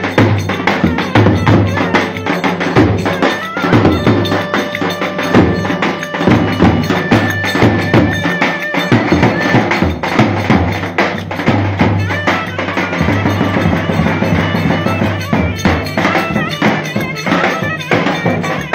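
Traditional Turkish folk music played by a band, with a steady drum beat under a melody instrument.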